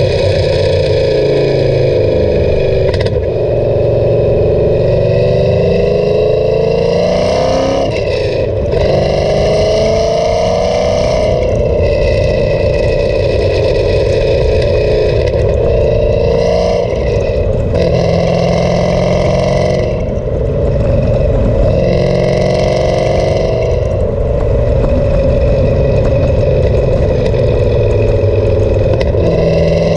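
Cammed Camaro SS V8 running through an MBRP exhaust, heard close at the tail at highway speed. The exhaust note climbs in pitch under throttle and drops back several times, with breaks about 8 and 11 seconds in.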